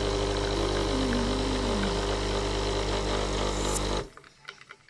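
Magimix Nespresso coffee machine's pump running steadily with a low hum while brewing a coffee, stopping abruptly about four seconds in as the brew ends.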